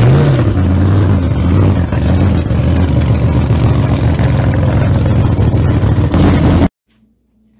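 Loud engine running and revving, an intro sound clip that cuts off abruptly near the end.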